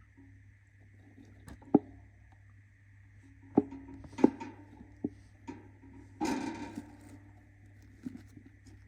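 A budgerigar moving about in its nest: scattered sharp taps and knocks, and one short scratchy rustle a little past six seconds in. A steady low hum and a faint high whine run underneath.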